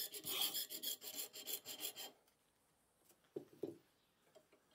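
A flat hand file rasping across the end of a steel nail held in a bench vise, in quick short strokes about four a second, filing the pin down to fit its hole. The filing stops about two seconds in, followed by two light clicks.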